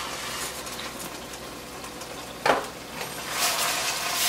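Pasta sauce sizzling in a frying pan on an electric coil stove, with one short, sharp knock of cookware about halfway through. The hiss swells again near the end.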